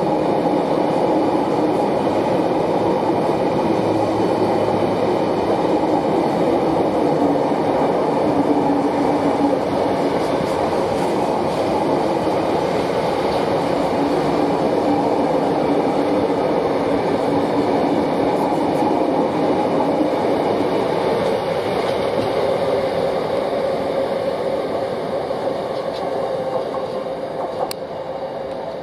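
Train running along the track: a steady rumble of wheels on rails that eases off slightly near the end.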